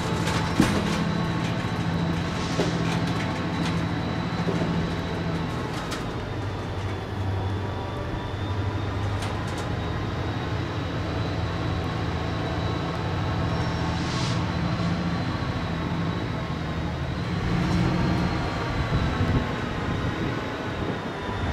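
A pair of EMD SD40-2 diesel locomotives hauling a heavy freight train up a grade, heard as a continuous low engine drone, while the tank cars crawl past at a walking pace on the edge of stalling. A thin steady high whine runs through it, with a few scattered clanks from the cars.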